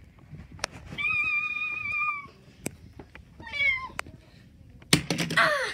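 High-pitched wordless cries: a held, slightly wavering squeal about a second in, a short wavering cry later, and a loud falling wail near the end. A few sharp clicks, like toys being handled, fall between them.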